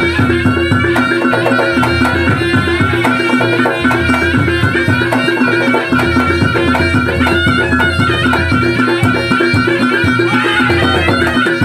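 East Javanese reog gamelan music playing: a reedy wind instrument carries a wavering melody over a steady beat of hand drums and sustained gong tones.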